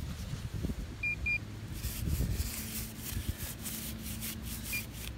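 Handheld metal-detecting pinpointer swept through thick grass. It gives two short high beeps about a second in and one more near the end as it passes near a metal target. Rustling and brushing of the grass against the probe and glove are heard throughout.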